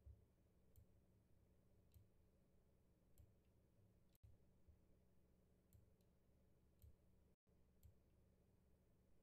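Near silence: room hum with about seven faint, sharp clicks at irregular intervals, typical of input clicks while drawing on a computer.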